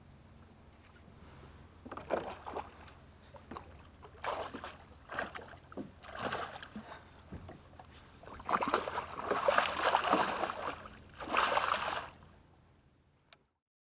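A northern pike thrashing and splashing at the water's surface beside a small boat, in irregular splashes that get heavier as it is scooped into a landing net near the end, then cut off suddenly.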